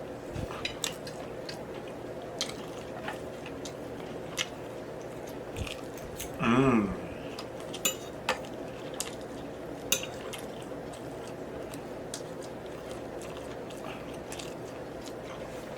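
Close-miked chewing and biting of food, with scattered sharp clicks of cutlery against a plate. A short hummed vocal sound comes about six and a half seconds in.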